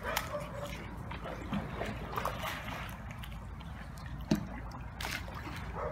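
Swimming pool water sloshing and lapping over the pool's edge as an earthquake shakes it, with a single sharp tap about four seconds in.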